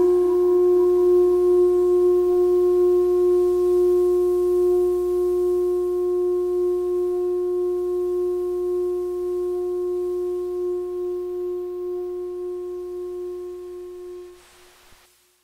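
A single held synthesizer note closing out an electronic track: a steady, pure tone with a few faint overtones over a low hum. It slowly fades and dies away about fourteen seconds in.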